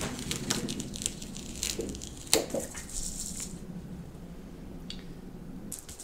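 Plastic cutting mat and a strip of glitter iron-on vinyl being handled: the sheets flex and crinkle with a string of clicks and taps, the loudest a sharp snap about two and a half seconds in, then a few light taps as the vinyl is laid and pressed onto the mat.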